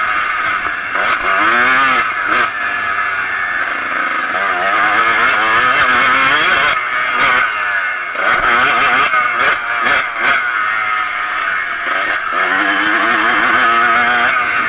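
Kawasaki KX125's two-stroke single-cylinder engine under hard riding, its note rising and falling again and again as the throttle is worked, with a few brief dips where the throttle is shut off.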